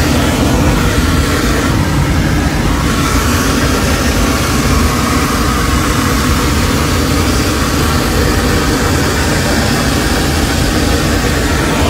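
Loud, steady roar of rushing air and engine noise inside a Southwest Boeing 737 airliner cabin after an in-flight engine explosion, with the oxygen masks deployed.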